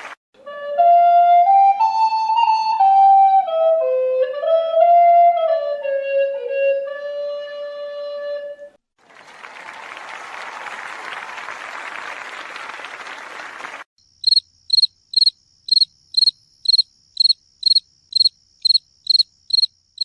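A woodwind instrument, flute-like, plays a short stepwise melody for about eight seconds, followed by a few seconds of applause. Then, about two-thirds of the way in, a cricket starts chirping, high and regular, about two chirps a second.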